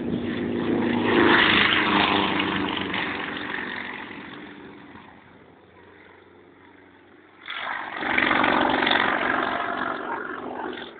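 Single-engine aerobatic propeller plane at full power, loud as it passes close on its take-off run and fading as it pulls up into a steep climb. About seven and a half seconds in the engine sound jumps back suddenly and loudly, then drops off just before the end.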